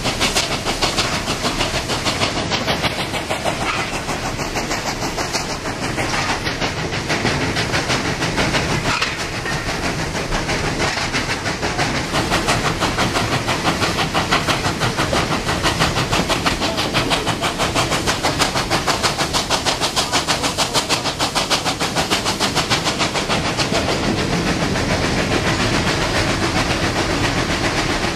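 NSWGR 59 class 2-8-2 steam locomotive 5910 running under steam, heard from the cab: even, rapid exhaust beats, about three to four a second, over a steady hiss of steam and running noise.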